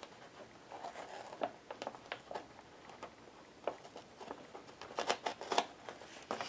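Paper bag made of magazine pages rustling and crinkling in the hands, with scattered light clicks and taps, busiest about five seconds in, as twine is worked through a metal grommet.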